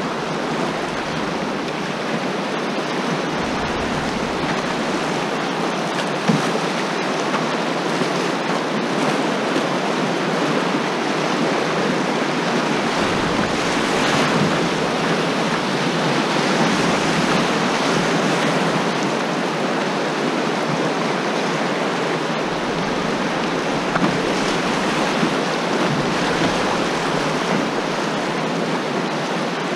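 River rapids rushing around a canoe: a steady loud rush of whitewater, mixed with wind on the microphone. A few brief knocks stand out, about six seconds in, around twenty-four seconds, and near the end.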